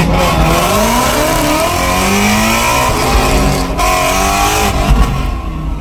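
Whipple-supercharged Shelby GT350R's flat-plane-crank V8 revving loudly from inside the cabin, its pitch rising and falling several times, easing off near the end.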